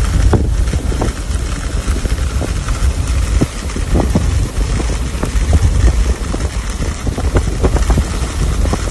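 Heavy wind-driven rain pouring down, with gusts buffeting the microphone in a loud, steady low rumble and short crackles scattered through it.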